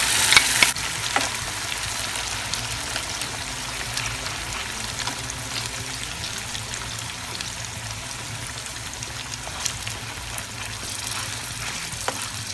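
Fish steaks and a tomato-chili masala sizzling steadily in an oiled pan on low flame, louder for the first moment and then settling, while a spoon spreads the masala with a few light clicks against the pan.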